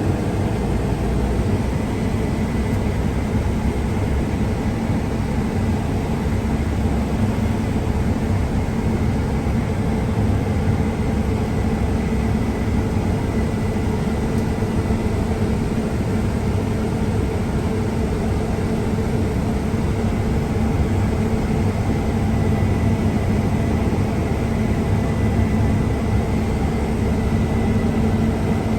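Combine harvester running steadily: an even engine drone with a constant hum that does not rise or fall.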